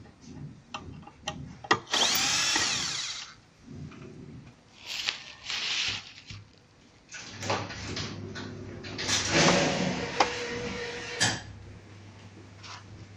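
Cordless electric screwdriver backing screws out of a self-balancing scooter's metal central control plate, running in several short bursts with its motor whine rising and falling, between clicks and knocks of the screws and plate being handled.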